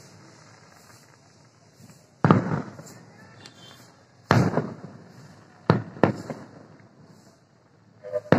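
Aerial firework shells bursting: four sharp bangs, the last two in quick succession, each trailing off in a fading echo.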